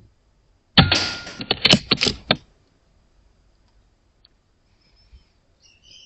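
.22 Airmaks Krait L air rifle firing once about a second in, a sharp shot at a rat, followed by a quick run of sharp clicks and knocks over the next second and a half. Faint high squeaks near the end.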